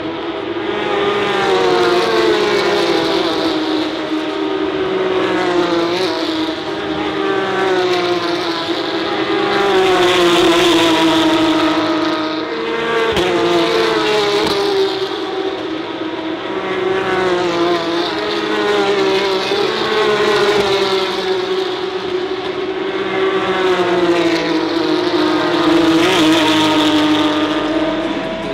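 Race car engines passing one after another. Each swells and fades as it goes by, its pitch sliding up and down through gear changes.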